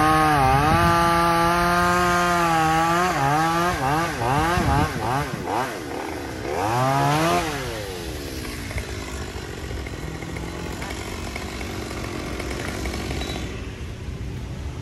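Chainsaw running at high revs, then revved up and down in quick swings, dropping back to a quiet idle about eight seconds in.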